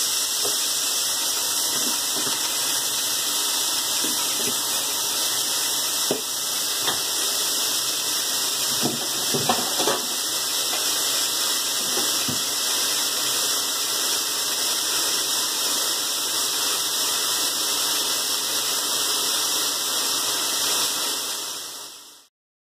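Halved mushrooms sizzling in hot oil in a stainless steel frying pan: a steady hiss, with a few light clicks about halfway through. It fades out near the end.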